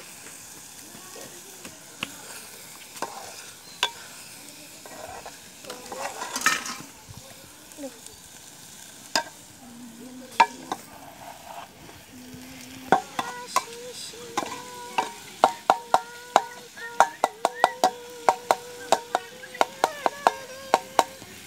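A metal spoon stirring and scraping scrambled egg in a thin metal bowl over a wood fire, with faint sizzling underneath. The strokes are sparse at first, then come quickly, about three a second, from a little past halfway, and the bowl rings with each knock.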